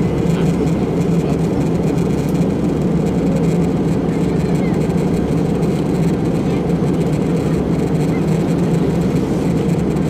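Airliner cabin noise in cruise: a steady, loud, low roar of the jet engines and rushing air, with no change in pitch or level.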